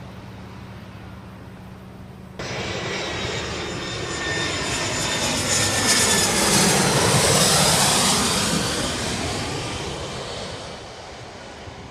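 Jet airliner passing low overhead, its engine noise starting abruptly about two seconds in, swelling to a peak in the middle and fading away near the end.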